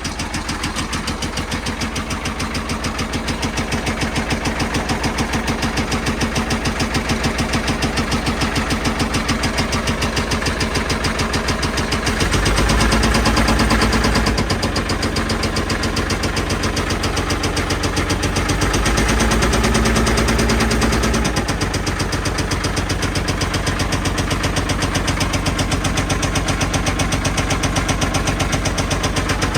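Caterpillar 977L track loader's diesel engine running at idle with a steady, rapid beat. It is revved up briefly twice, a little under halfway through and again a few seconds later, then settles back to idle.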